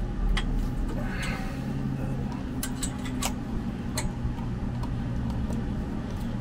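Scattered sharp clicks and light taps of metal parts being handled while a tubular steel skid plate is fitted under a vehicle, over a steady low hum.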